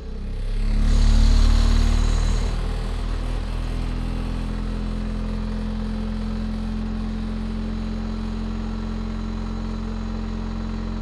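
12-volt DC motor spinning an aluminium wheel studded with magnets in a homemade magnetic (eddy-current) heater, starting up: it swells as it comes up to speed in the first couple of seconds, then runs with a steady hum.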